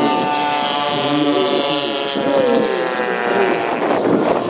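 Piston engines of giant-scale radio-controlled warbird models running on the runway, several droning tones shifting in pitch, with a rush of noise about four seconds in.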